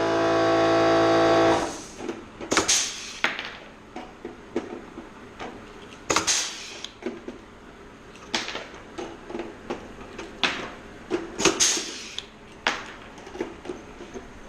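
Blind rivets in aluminium skin being set one after another with a rivet puller: irregular sharp snaps every second or so, several with a brief rush of air, among lighter clicks of clecos and tools. A steady machine hum cuts off about a second and a half in.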